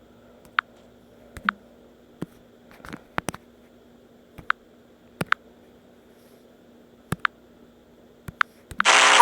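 Quiet room tone with a faint steady hum, broken by a dozen or so short, sharp clicks and ticks at irregular intervals; a loud sound sets in right at the end.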